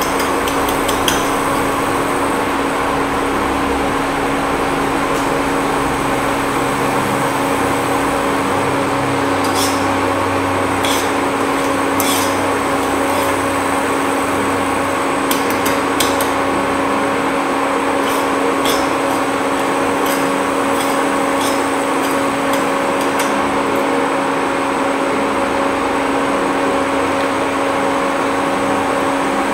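Steady hum and fan noise from an electric cooktop heating a stainless steel saucepan of dry sugar, with a few faint ticks scattered through the middle.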